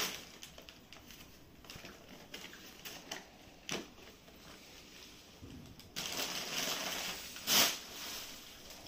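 Gift-wrapping paper being torn and crumpled in scattered short rustles, busier in the last few seconds, with one loud rustle near the end.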